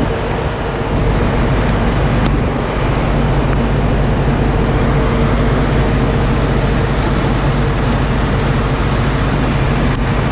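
Heavy diesel truck engine running steadily, a loud, even drone.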